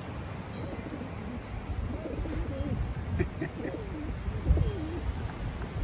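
Racing pigeons cooing, several low wavering coos following one another from about two seconds in.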